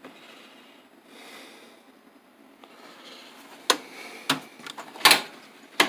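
Metal tool chest drawers being slid and knocked: a faint rolling slide, then four sharp clunks over the last two seconds, the loudest about five seconds in.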